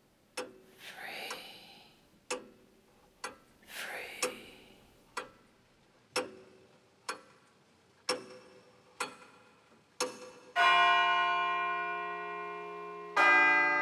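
A clock ticking about once a second, with two soft whooshing swells in the first few seconds. About ten and a half seconds in, a deep bell strikes twice, about two and a half seconds apart, each strike ringing on and slowly dying away.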